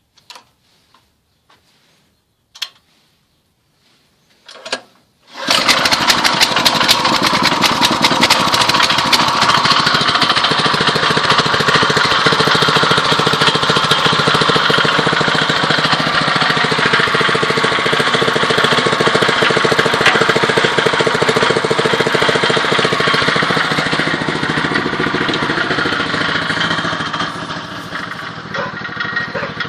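Small 6.5 hp walk-behind tractor engine, a single-cylinder four-stroke, starting after a few faint clicks and knocks about five seconds in, then running loud and steady; its level drops somewhat near the end.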